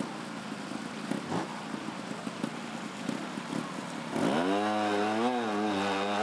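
Trials motorcycle engine, quiet at first, then revved up sharply about four seconds in and held at high revs with a wavering pitch as the bike pulls up a steep slope.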